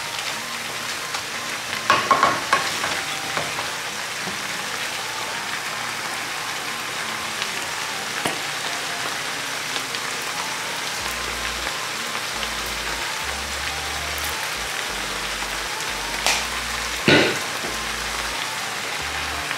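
Pork and vegetables sizzling steadily in a frying pan, with a wooden spatula clattering against the pan about two seconds in and two short knocks near the end.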